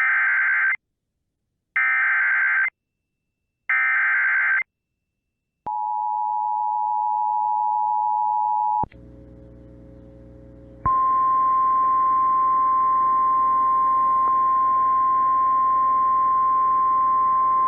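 Emergency Alert System tones: three short bursts of warbling SAME header data about two seconds apart, then a steady two-tone attention signal for about three seconds. After a moment of faint radio hiss, the single steady 1050 Hz NOAA Weather Radio alert tone starts about eleven seconds in, over background static. This sequence marks the start of a new weather warning.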